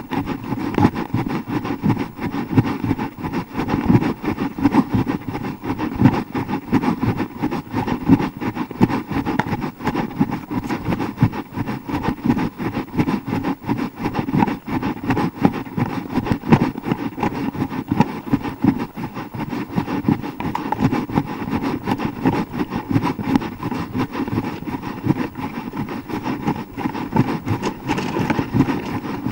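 Wind buffeting and handling noise on a hand-held action camera's microphone as its holder runs: a steady, rough rumble full of rapid small thumps.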